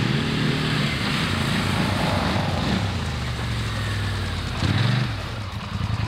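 Polaris quad bike engines running as the quads drive through woodland. One comes close and passes by, and its engine is loudest about five seconds in.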